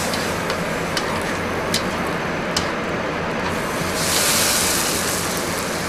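Cream sauce bubbling in a stainless sauté pan over a high gas flame, with the steady rush of the burner and a few light clicks of metal tongs against the pan as it is stirred. A louder hiss swells about four seconds in.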